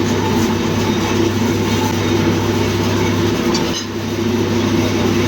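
Steady, loud machine running noise with a constant low hum, dipping briefly near the end.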